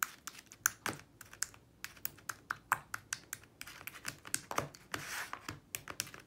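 Metal spoon tapping and scraping on a paper plate as it stirs mayonnaise: a string of quick, irregular clicks, with a longer scrape about five seconds in.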